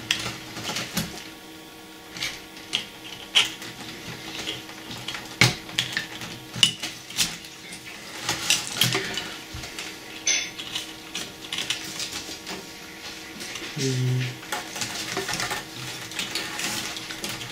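Irregular light clicks and taps of small plastic and metal parts being handled and fitted inside an opened cassette deck's tape mechanism.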